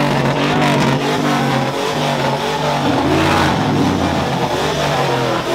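Car and truck engines running and revving, with traffic passing.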